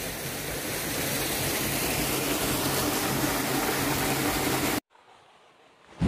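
Steady rushing and splashing of a small hot-spring waterfall falling into a rock pool and stream. It cuts off suddenly about five seconds in.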